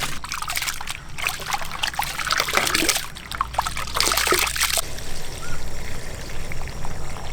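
Split moong dal being washed by hand in a vessel of water: irregular swishing, trickling and splashing.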